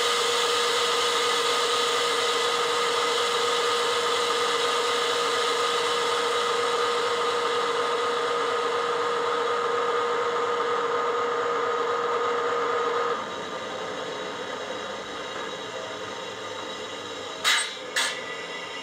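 Class 70 diesel locomotive sound from a DCC sound decoder, played through the small speaker of a stationary OO-gauge model. The engine runs at idle with a steady whine, which cuts out about 13 seconds in and leaves a quieter idle. Two short, sharp sounds come near the end.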